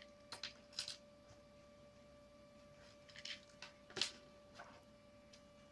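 Faint handling noises from a credit-card-sized multitool and a credit card: a few light clicks and scrapes, the sharpest about four seconds in, over a steady faint high hum.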